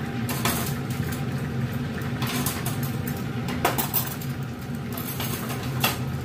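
Steady low hum of a kitchen range hood fan, with about five light clinks of a bowl and utensils over a frying pan, scattered through the few seconds.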